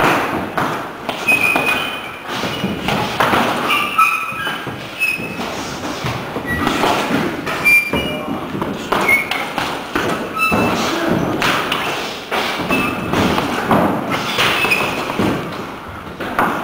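Punches landing on a hanging heavy punching bag: an irregular run of thuds, about one or two a second, with short high squeaks in between.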